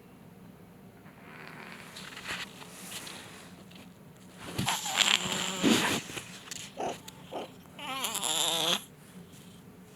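Domestic cat waking from sleep and giving buzzy, wavering trill-like calls: several loud irregular ones about halfway through, two short ones after, and a longer quavering one near the end.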